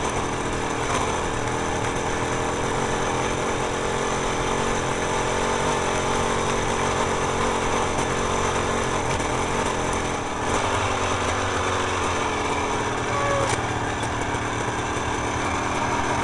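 Small motorcycle engine running at a steady pace, with a brief drop in level about ten seconds in.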